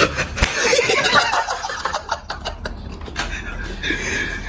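People snickering and breathing in stifled laughter, with a scatter of short clicks.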